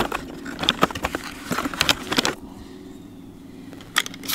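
12-gauge shotgun shells clicking and rustling as they are taken from a cardboard box, then two sharp clicks near the end as shells are pushed into the DP-12 shotgun's magazine tube.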